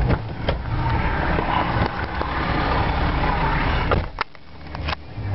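Vehicle engines running at idle: a steady low rumble with a noisy hiss above it. About four seconds in, the rumble drops away and two sharp clicks follow.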